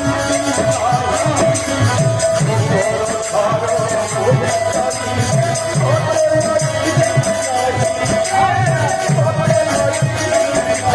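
Kirtan devotional music: a steady held note with a wavering melody over it, a drum beating a repeating rhythm and metal jingles or small cymbals keeping a fast beat.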